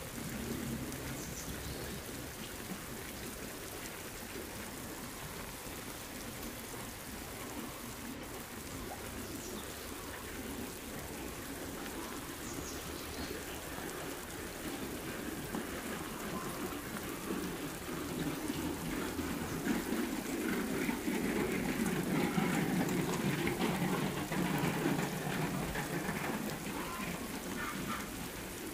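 Heavy rain falling steadily. It grows louder about two-thirds of the way through, then eases slightly near the end.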